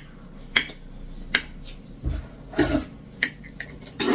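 Kitchen knife clinking and tapping against a ceramic cake plate as a layered cake is cut: a few sharp clinks, a couple of duller knocks, and a louder rough scrape right at the end.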